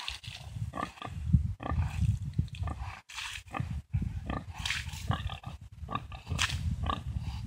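Sow grunting low and repeatedly in a rough, pulsing rumble, with short sharper sounds in between.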